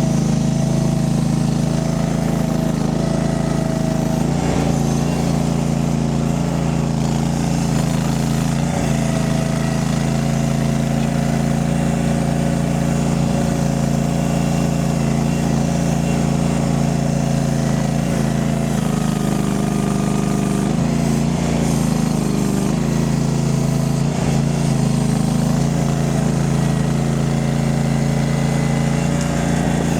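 Mini skid steer's engine running steadily at a constant speed, its note wavering and shifting briefly about two-thirds of the way through.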